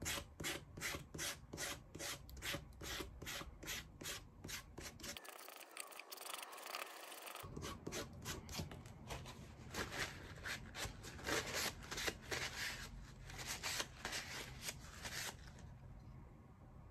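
A wad of wet aluminum foil scrubbed back and forth along a rusty steel chisel blade, rapid scratchy strokes about three or four a second, taking the rust off. The scrubbing stops near the end.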